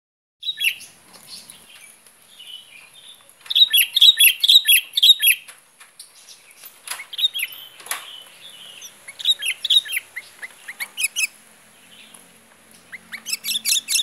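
Sooty-headed bulbul (kutilang) singing: short phrases of quick, bright chirping notes, the loudest a rapid run of notes a few seconds in, with further phrases at intervals.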